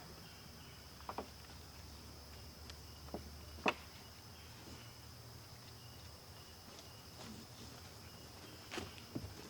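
Steady high chirring of insects, with a few short sharp clicks and knocks scattered through it, the loudest just under four seconds in.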